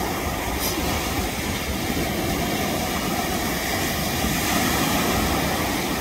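Small waves breaking and washing up the sand in shallow surf, a steady rushing noise.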